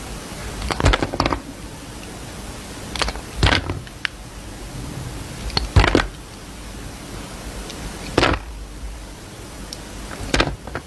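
Soap being cut: five short crunchy, crackling cuts, about one every two and a half seconds, over a steady hiss.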